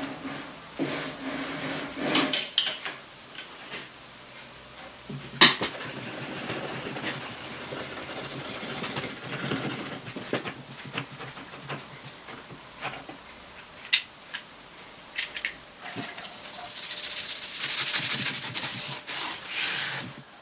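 Metal clinks, knocks and rubbing from lathe parts being handled, with a few sharp knocks. A steady hiss lasts about three seconds near the end.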